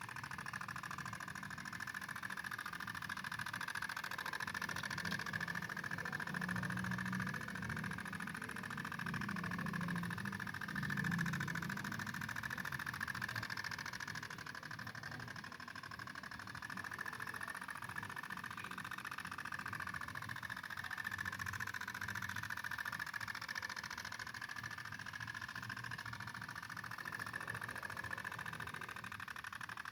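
Small two-stroke engine of a G 1000 mini tiller running steadily while working soil, its pitch wavering slightly up and down under the changing load.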